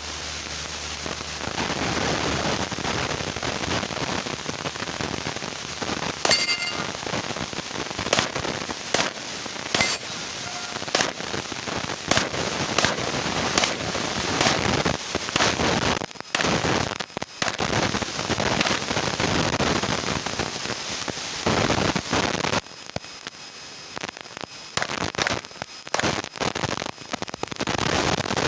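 A long string of pistol shots fired at irregular intervals, some in quick pairs, over a steady rushing noise.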